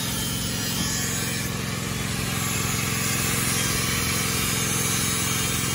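Steady hum of a running motor with a hiss over it, holding an even pitch throughout.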